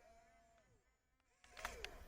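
Faint whine of a radio-controlled model's small electric motor winding down and stopping, a brief hush, then a motor whining up again with a few clicks near the end.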